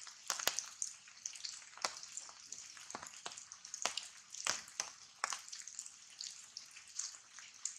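Rain falling on foliage: a steady hiss with many irregular sharp drips, some close and loud.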